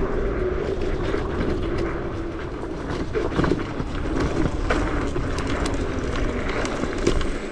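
Boyueda electric scooter ridden fast over rough, holey ground: the scooter rattles and knocks over the bumps, above a steady motor whine and a low rumble of wind on the microphone.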